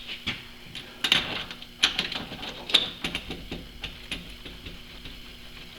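Irregular light metallic clicks and knocks of steel parts being handled and fitted together, some with a short bright ring, as a part is tried in a freshly bored hole that turns out to be a tight fit.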